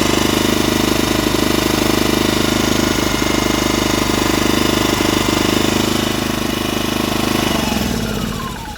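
Brand-new Polaris digital inverter generator running steadily on its first start, then winding down and stopping near the end as it is shut off.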